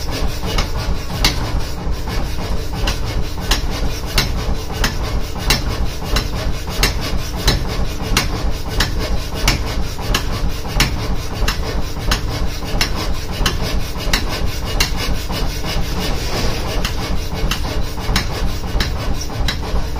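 Power hammer striking a red-hot iron rod to flatten it: a steady run of sharp blows, roughly two a second, over the continuous hum of the hammer's running motor.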